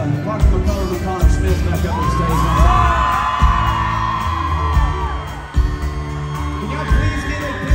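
Live country-pop band playing through a concert PA with a heavy kick-drum beat and a singer on the microphone, with whoops from the crowd over the middle.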